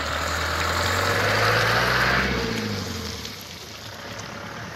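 A motor vehicle driving past close by: its engine and tyre noise swell to a peak about two seconds in, the engine pitch climbing, then fade away.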